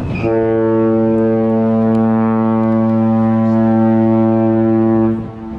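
Cruise ship's horn sounding one long, steady blast that cuts off about five seconds in.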